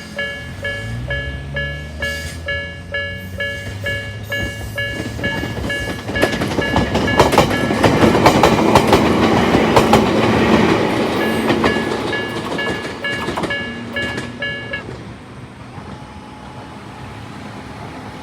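Japanese railway level-crossing bell of the Nikkō type ringing in a steady repeating ding, about two strokes a second, while a Jōmō Electric Railway train passes with wheels clacking over the rail joints. The train noise swells through the middle, and the bell stops a few seconds before the end.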